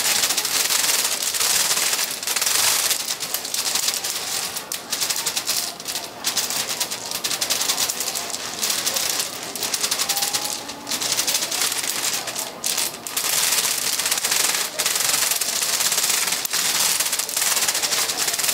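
Rapid, dense clattering of small hard candy pieces against a worktable, like fast typing, with a few brief lulls.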